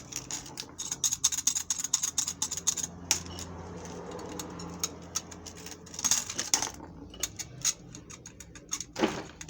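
Removed Nissan Almera N16 clutch disc being worked by hand, its hub rattling and clicking in quick runs: the disc has worn loose, the source of the knock from the clutch.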